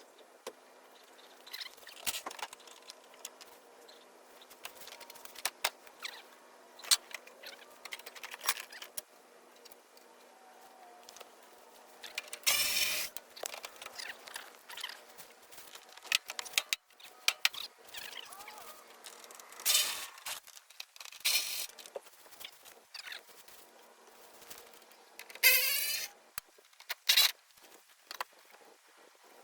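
Hand work on a truck's body panels while the hood is being taken off: scattered clicks, taps and metal clanks, with three louder rasping scrapes, the first a little before halfway, the second about two-thirds through and the last near the end.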